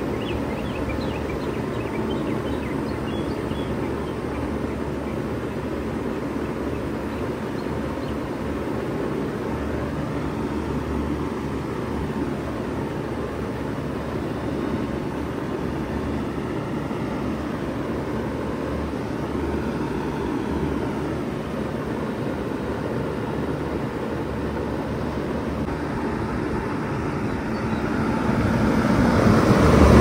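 1996 Bard 3-ton wall-mount heat pump running in cooling mode: a steady hum of compressor and condenser fan, getting louder near the end as the microphone comes up to the condenser grille.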